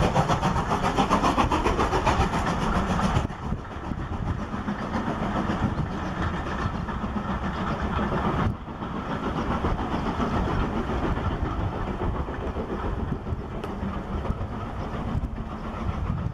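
BR Standard Class 4MT 2-6-0 steam locomotive passing under steam with rapid exhaust beats, which drop away sharply after about three seconds. This leaves the rumble and clatter of its coaches rolling past on the rails.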